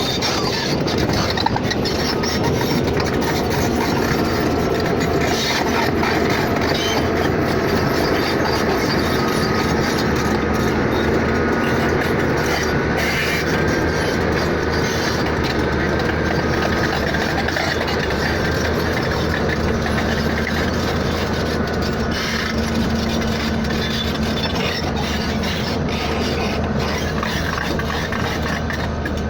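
A vehicle running steadily, with even road or engine noise and a faint hum whose pitch drifts a little.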